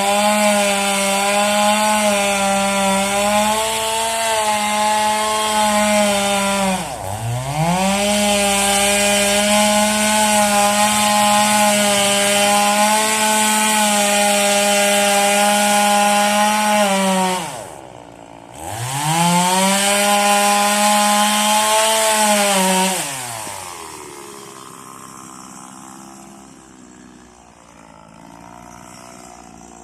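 Stihl two-stroke chainsaw running at full throttle through wood. The engine note dips and climbs straight back about seven seconds in, drops out briefly and revs up again around eighteen seconds, then falls away to a quiet idle near the end.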